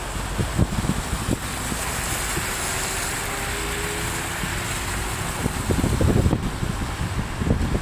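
Flooded city street: a steady hiss of water with cars driving through it. Irregular low buffeting thumps on the phone microphone are loudest about six seconds in.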